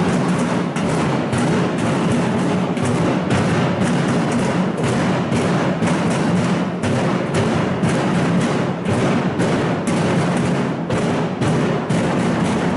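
Protesters drumming and banging in unison and out of step, a dense, unbroken clatter of many strikes with a low booming underneath.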